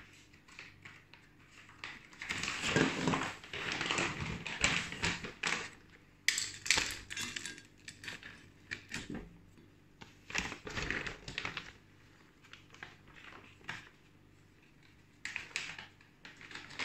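Dry puppy kibble rattling and clinking against a stainless steel bowl as a hand stirs and scoops it. It comes in several bursts of clatter with short pauses between them.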